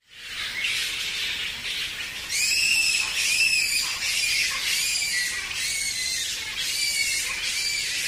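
Indian flying foxes calling: a string of shrill, arching squeals, about one a second, starting about two seconds in over a steady hiss.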